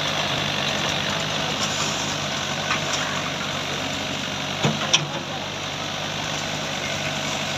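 JCB excavator's diesel engine running steadily at idle, with two short metallic knocks about five seconds in.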